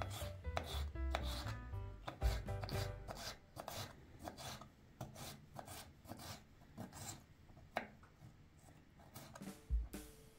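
Knife dicing pickled cucumbers on a wooden cutting board: a long run of quick chops, about two or three a second, each stroke cutting through and tapping the board.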